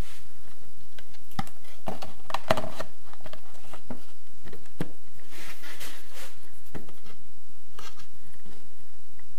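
A laminate plank being handled and fitted against a window frame by hand: scattered light knocks, with scraping and rubbing twice.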